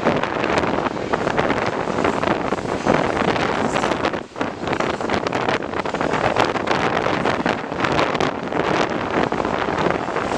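Double-stack intermodal freight cars rolling past on the rails, mixed with strong wind buffeting the microphone, with a brief lull about four seconds in.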